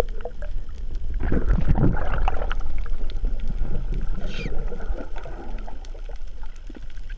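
Underwater ambience on a coral reef: a low steady rumble with scattered sharp clicks and crackles, a louder swell of water noise a second or two in, and a short falling squeal about four seconds in.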